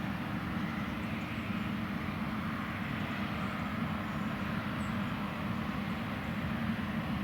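John Deere X9 1100 combine harvester running steadily while harvesting oilseed rape: a constant low engine drone with a broad machinery hum over it.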